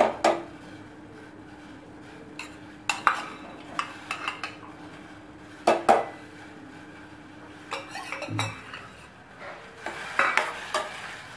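A steel spoon clanks and scrapes against a stainless steel bowl and pot as sprouted green gram is tipped into the pot. Then the spoon stirs the sprouts, with a run of small knocks near the end. The sharp metal clanks come a second or more apart, the loudest at the very start and about six seconds in.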